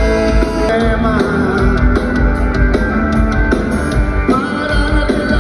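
Music playing: a song with singing, guitar and a steady beat.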